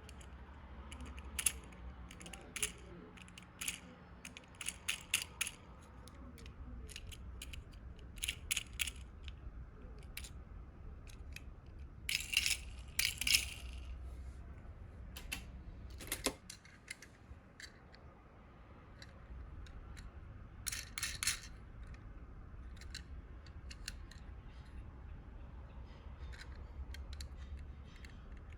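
Small die-cast toy cars clinking and clicking against each other as they are handled and sorted in a box: irregular sharp clicks with a few quick clusters of clinks, over a faint low hum.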